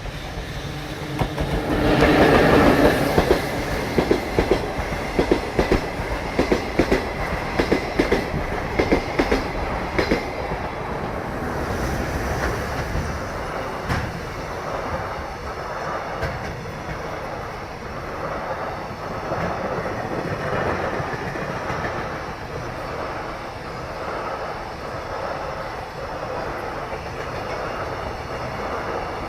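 JR Freight EF65 electric locomotive passing close by, loudest as it goes past, followed by a run of rhythmic wheel clacks over the rail joints. Then the steady rolling rumble of the towed Yokohama subway 4600-series cars, running unpowered behind the locomotive.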